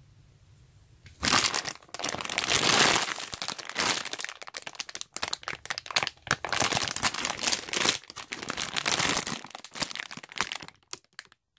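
Clear plastic packaging of a jumbo squishy toy crinkling loudly and irregularly as it is handled, starting about a second in and stopping shortly before the end.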